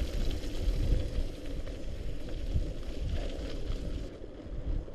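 Wind buffeting the microphone over a mountain bike rolling along a wet, slushy gravel trail, with small clicks and rattles from the bike; it eases a little about four seconds in.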